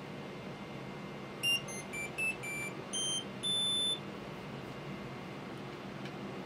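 Anycubic Kobra Plus 3D printer's buzzer playing its power-on jingle: a quick run of seven short electronic beeps at changing pitches, ending on a longer, higher tone, over a steady low hum.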